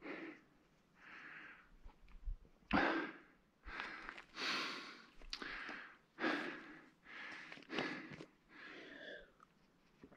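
A man breathing hard and fast, a quick run of audible breaths in and out, catching his breath after a climb on a mountain bike.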